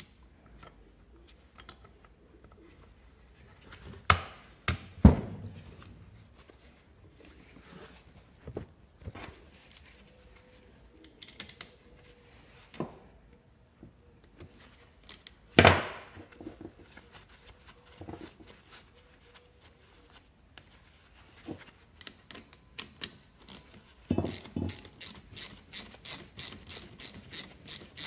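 Ratchet wrench clicking in short even strokes, about three or four a second, near the end as a bolt is driven into the scooter engine's crankcase. Before that, a few single knocks of metal tools against the engine case.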